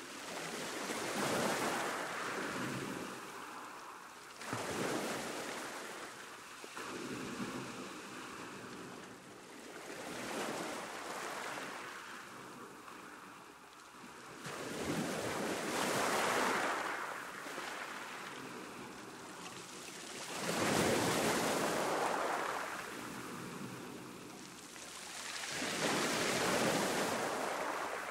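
Sea waves breaking on a shore, the surf noise swelling and fading every few seconds.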